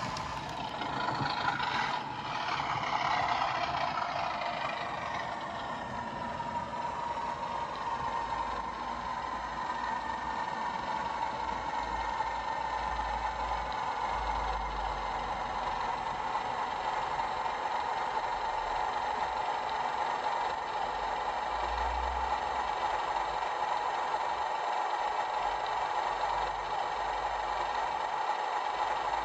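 Hornby TTS sound decoder in a Bachmann OO-gauge Class 37 playing the diesel engine sound through a small iPhone speaker. The engine note winds down over the first few seconds, then settles into a steady run.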